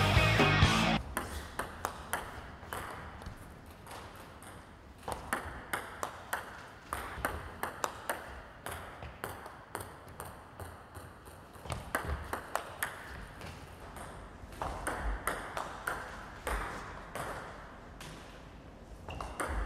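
Table tennis ball clicking sharply off the table and a penhold bat in quick repeated strokes as reverse-penhold backhand chiquita flicks are played. Several clicks come each second, in runs broken by short gaps. Music plays for about the first second, then stops.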